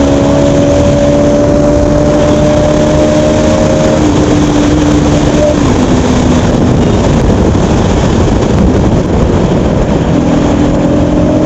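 Bajaj Pulsar NS200's single-cylinder engine running at a steady cruising speed under loud, dense road and wind noise. The engine note holds even, drops a little and fades about five or six seconds in, then comes back near the end.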